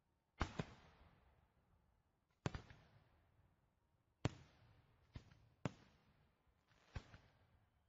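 Fireworks exploding: about seven sharp bangs at uneven intervals, a close pair near the start and another pair past the middle, each trailing off in a fading echo.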